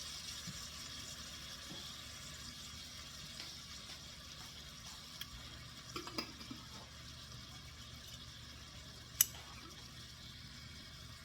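Pan of sausage and tomato sauce sizzling faintly as it simmers, with a little water added. There are a few light clinks about six seconds in and one sharp click a little after nine seconds.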